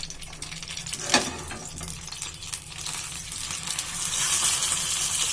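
Oil sizzling around a banana-leaf-wrapped chicken parcel frying in a pan, with a single sharp utensil knock about a second in. The sizzle grows louder over the last second or two as the parcel is turned over onto its other side.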